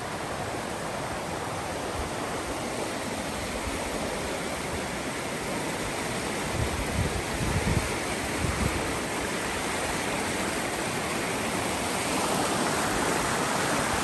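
Fast river rushing over rocks in white-water rapids, a steady roar of water that grows a little louder toward the end. A few low thumps come about halfway through.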